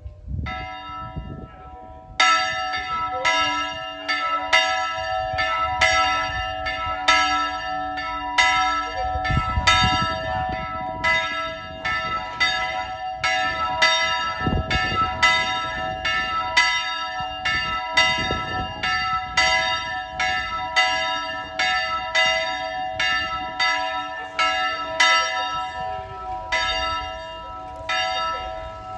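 Three church bells rung together by hand, their clappers pulled by a ringer in the belfry, sounding a full peal of rapid strikes about two a second over a ringing hum. The strikes start about two seconds in and stop near the end, leaving the bells ringing out.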